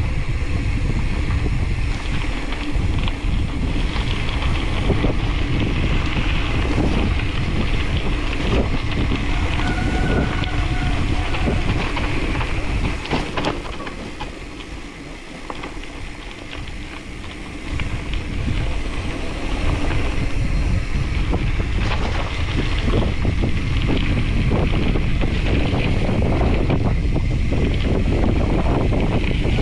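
Wind buffeting the microphone of a camera riding along on a moving bicycle, with scattered knocks and rattles. It eases for a few seconds around the middle, then comes back.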